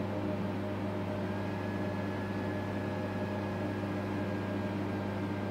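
Steady low electrical hum with fan noise from a rack of running APC Smart-UPS 1500 units, a faint thin high whine joining about a second in.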